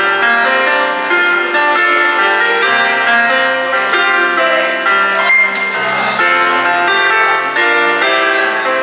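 Electronic keyboard played live through PA speakers: a melody over held chords, with a bright, bell-like tone.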